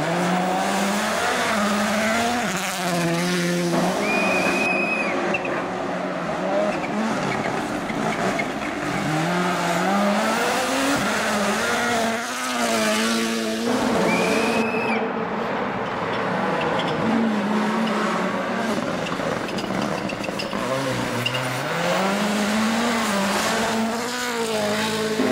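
Rally car engine revving hard and changing gear, its note climbing and dropping several times as the car accelerates and slows through corners.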